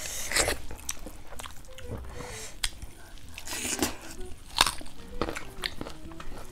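Close-up eating sounds of people taking a rice meal by hand: chewing, with scattered short mouth clicks and smacks at irregular moments.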